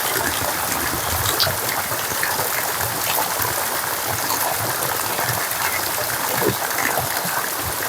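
Rain falling steadily with running water: a dense, even hiss of drops with scattered small patters.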